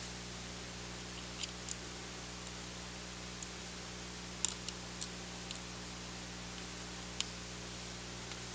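Scattered small, sharp clicks and ticks from a screwdriver and screws being worked out of a Panasonic Toughbook CF-30's LCD hinge, over a steady background hiss and hum.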